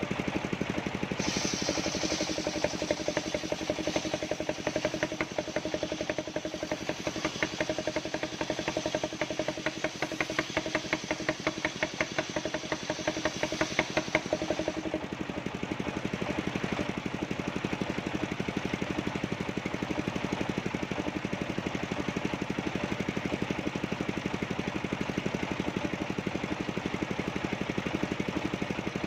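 Engine of a portable sawmill running steadily. From about a second in until about halfway through, a higher hissing cutting sound with a steady whine rides over it as the saw goes through coconut-palm wood; after that the engine runs on alone.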